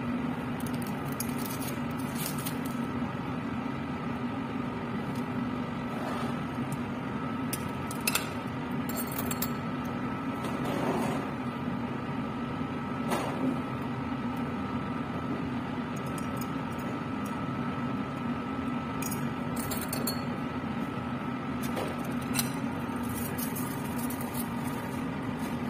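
Laminar air flow cabinet's blower running with a steady hum, with a few light clinks of metal forceps and glassware being handled, three of them sharper than the rest, about 8, 13 and 22 seconds in.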